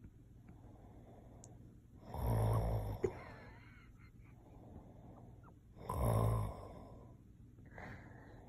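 A man snoring: two loud snores about four seconds apart, each lasting under a second, with a short sharp click just after the first.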